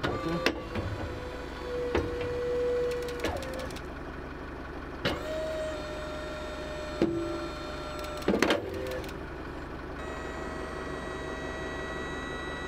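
A tow truck's wheel-lift boom being folded up: a steady motor whine in several runs, each at a slightly different pitch, starting and stopping with a sharp click at each change, over a constant low hum.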